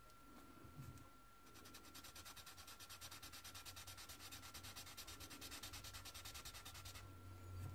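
Marker tip rubbing on paper in quick back-and-forth shading strokes, about ten a second, starting about a second and a half in and stopping about a second before the end. It is the sound of laying in and blending red marker colour.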